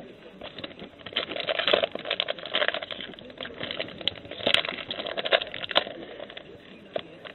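Football trading cards and their pack wrapper handled at close range: quick crinkling and rustling with small clicks of cards sliding over one another, and one sharper click about four and a half seconds in.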